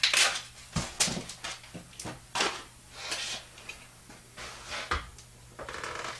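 Handling noises from a paper paint strainer being crinkled and set into a funnel, and a plastic mixing cup of primer with a wooden stir stick being picked up: a series of short rustles, scrapes and knocks about once a second, the loudest right at the start.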